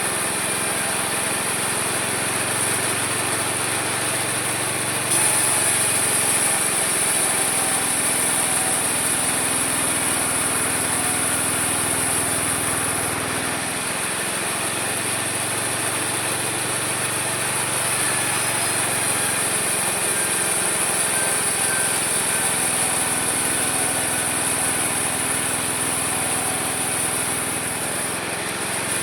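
Homemade mini sawmill running steadily, its small engine and blade sawing wood. The cut gets a little louder and brighter about five seconds in and eases again near thirteen seconds.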